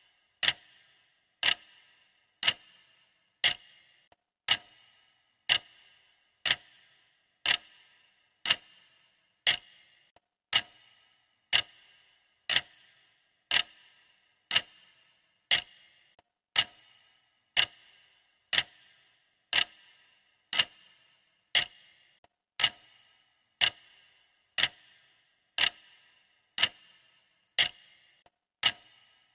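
Clock ticking steadily, one sharp tick about every second, each with a brief bright ring.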